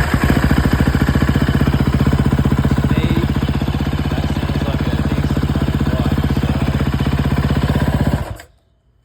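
2011 KTM 350 SX-F single-cylinder four-stroke engine idling with a fast, even beat, now idling fine with the correct spark plug fitted. It is switched off about eight seconds in and stops abruptly.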